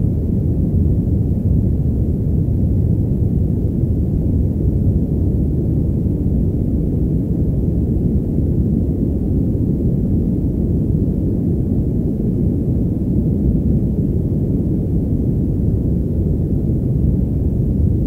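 Steady, muffled white noise, filtered so that nearly all of it sits low and the top end is cut away, heard as an even, deep hush that does not change.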